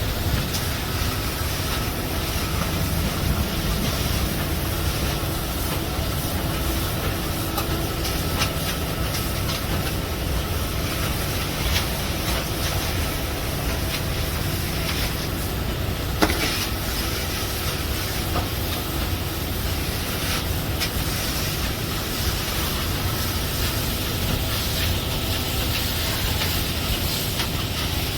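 Steady mechanical rumble and hiss of machinery running during a concrete pour, with one sharp knock about sixteen seconds in.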